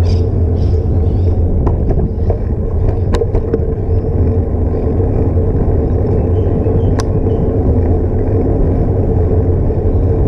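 Wind rushing over a bicycle-mounted action camera's microphone, with tyre and road rumble from the moving bike: a loud, steady low rush. A few sharp ticks from the bike rattling over the road surface, the clearest about three and seven seconds in.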